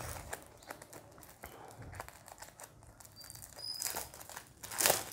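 Clear plastic poly bags around comic books crinkling and crackling as they are handled, in faint scattered crackles with a louder crinkle near the end.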